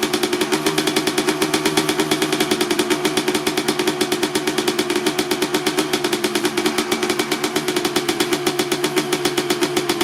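1995 Honda CR250R's single-cylinder two-stroke engine idling steadily through a Pro Circuit R-304 silencer on the stock header, warming up after a cold start, with a fast, even pulsing beat.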